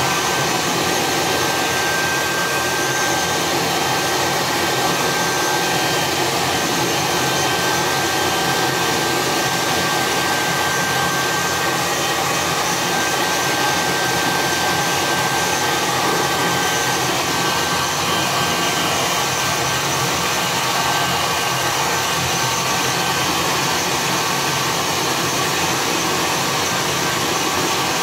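Handheld electric hair dryer running steadily, a constant rush of blown air with a faint high whine in it that fades in the second half.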